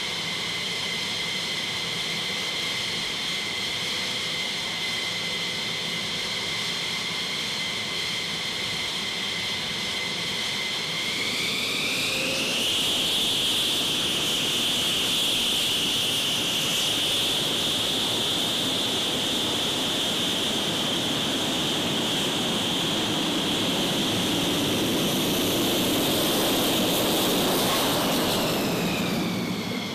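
F-15E Strike Eagle twin jet engines running on the ramp: a steady turbine whine over a rushing noise. The whine rises in pitch about twelve seconds in as the engines spool up, and then holds.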